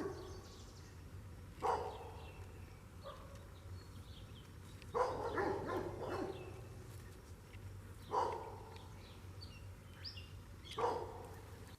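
A dog barking intermittently: single barks, plus a quick run of several barks about five seconds in, over a steady low hum. Faint bird chirps sound between the barks.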